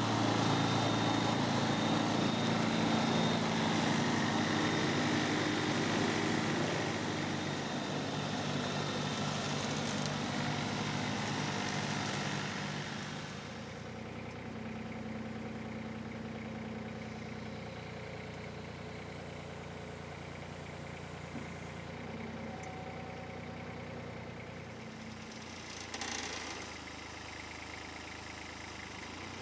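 Engine of a MacTrac compact carrier running steadily while driving its hydraulic 175 cm mower deck. It is louder for roughly the first half, then drops to a quieter, steady run from about halfway, with a brief louder burst near the end.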